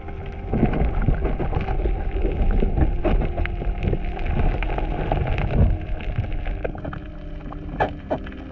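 Underwater scuffling recorded through an underwater camera as a diver's gloved hands dig under a rock ledge and drag out a crayfish, churning up sand: a deep rumble with dense crackling and knocking. It starts about half a second in and eases off after about six seconds.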